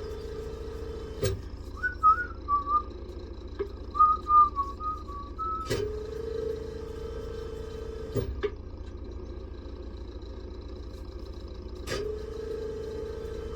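A person whistling a short string of notes of a tune, over a steady machine hum that switches on and off a few times with a click.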